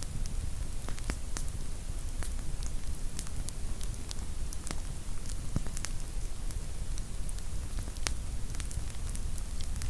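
Burning firewood in a campfire, crackling with irregular sharp pops and snaps over a steady low rumble.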